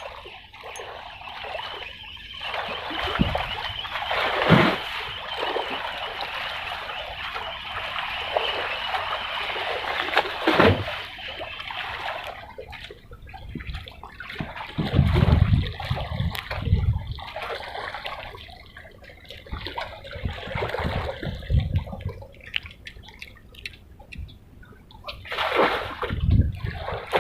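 Water splashing and sloshing, steady for about the first twelve seconds, then more broken, with a few dull low bumps.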